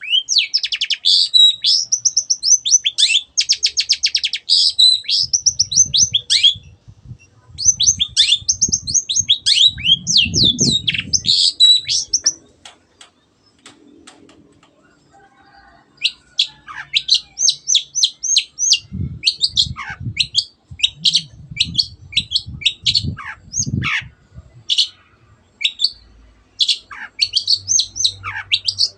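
Long-tailed shrike (cendet) singing loud, rapid, varied phrases of high chirps and sweeping whistles, with a fast, even trill a few seconds in. It breaks off for about three seconds near the middle, then starts again. Faint low thuds sound beneath the song in places.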